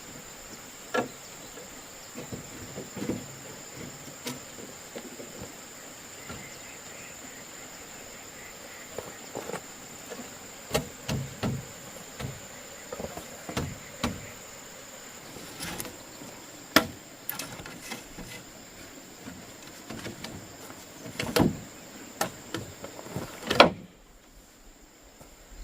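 A steady high insect drone runs under scattered sharp knocks and clicks, the loudest in the second half, typical of hands working with wood or bamboo. Near the end the drone and background cut out suddenly.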